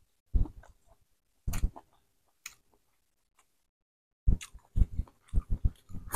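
Person chewing boiled seafood: a few short mouth clicks, a silent pause, then from about four seconds in a quick run of clicks and smacks as a sauce-coated tiger prawn is bitten into.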